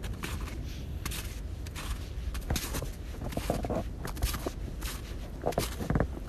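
Footsteps on a forest floor, in an irregular string of short steps, over a steady low rumble.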